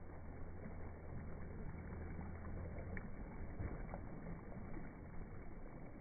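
Small sea waves lapping and washing over a pebble shore and a rock, with a few faint clicks of stones about three and four seconds in. A low steady hum sits under the wash in the first half.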